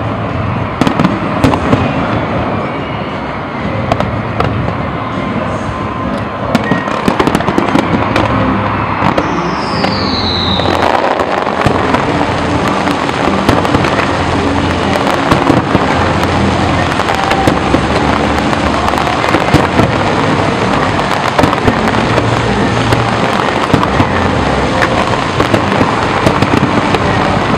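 Dense fireworks barrage: shell bursts and crackling set off in rapid, overlapping succession, banging and popping throughout, with a short falling whistle about ten seconds in.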